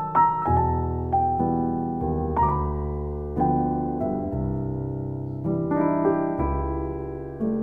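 Background music: a gentle piano melody of single notes over held chords.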